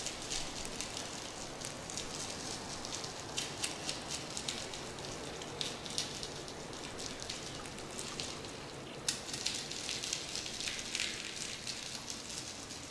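Long fingernails tapping and scratching on a small clear plastic box of opalite chips, making many quick, irregular clicks and crackles over a steady background hiss.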